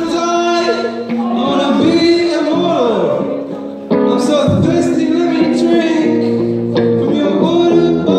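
Live rock band playing, with electric guitars, drums and singing. It gets suddenly louder about four seconds in.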